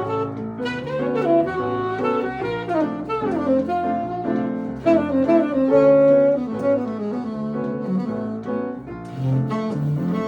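Live jazz: a saxophone plays a melody line over double bass accompaniment, with one long held note about midway.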